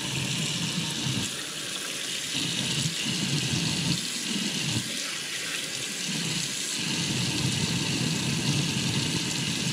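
Kitchen tap running into a stainless steel sink, the stream splashing over a gutted trout held under it while its bloodline is rinsed out. The splashing swells and fades as the fish is moved in the stream.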